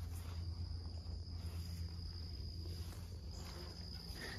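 Insects chirring steadily in one high, even tone, over a low steady hum.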